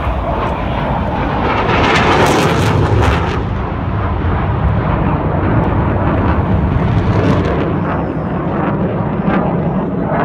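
Jet noise of an F/A-18 Hornet flying overhead: a loud continuous roar that peaks with a hissing rush about two to three seconds in, then carries on as a lower rumble.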